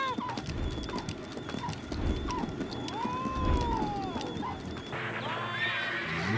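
Cartoon cat giving long, arching yowls while running in a wooden treadmill wheel, over a rapid clatter of knocks.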